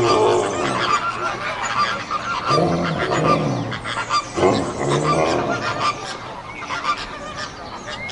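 Loud honking animal calls, each rising and then falling in pitch: one fading out at the start, then two more about two and a half and four and a half seconds in, over a busy background that grows quieter toward the end.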